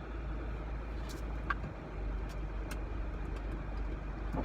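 Car engine idling, heard from inside the cabin: a steady low rumble with a few faint clicks.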